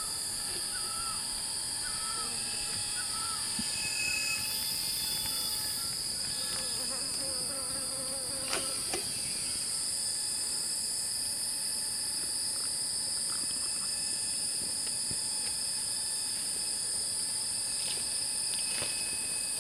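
Steady high-pitched drone of forest insects. Short repeated chirps sound in the first few seconds, and a single sharp click comes a little before halfway through.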